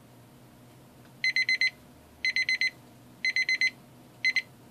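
Wrenwane digital kitchen timer beeping as its countdown runs out: four rounds of quick high beeps about a second apart, four beeps to a round, the last round cut short after two beeps when its button is pressed to stop it.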